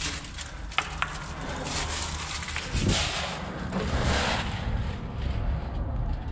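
Dry leaves rustling and crunching under someone crawling through them, with two sharp clicks about a second in and a louder stretch of crunching around three to four seconds in, over a low steady rumble.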